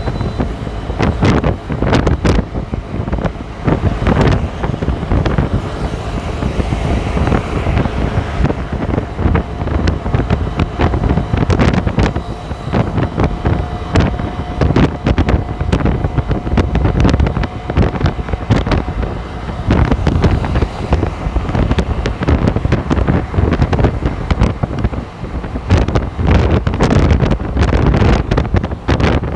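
Heavy wind buffeting on the microphone of a phone carried on a moving bike, over the steady rush of highway traffic.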